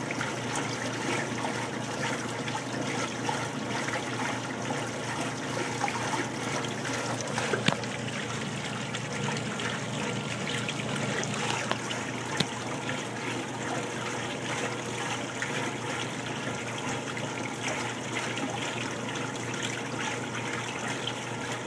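Top-loading washing machine filling: a stream of water pouring from the fill spout into the tub, splashing steadily, with a couple of brief knocks about eight and twelve seconds in.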